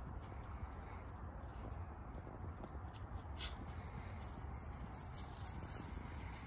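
Outdoor ambience: a steady low rumble with light rustling of dry leaves and grass as Weimaraner puppies move about, and faint high chirps.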